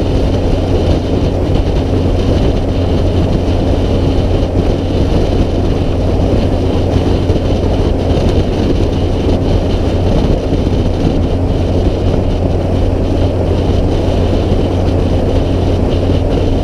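Straight-piped small-cam Cummins inline-six diesel in a Kenworth W900A running steadily as the truck cruises down the road, a constant low exhaust drone.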